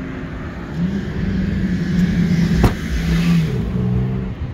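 A BMW 3 Series boot lid being shut, a single sharp slam about two and a half seconds in, over a car engine running steadily from about a second in.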